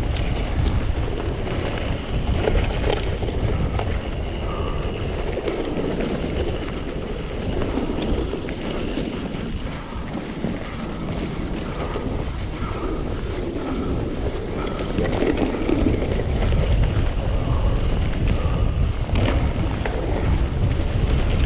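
Wind buffeting the action camera's microphone over the rumble of mountain bike tyres rolling on a rough trail, a steady noise with no break.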